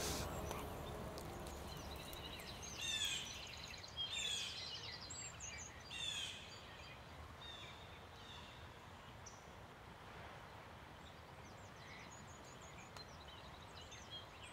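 Faint outdoor ambience with a bird calling several times in short chirpy phrases during the first half.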